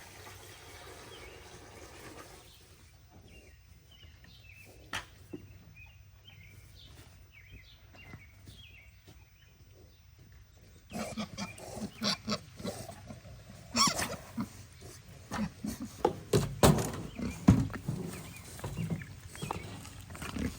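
Pigs grunting, faint in the first half, then loud and busy from about halfway through, with a few sharp knocks among the grunts.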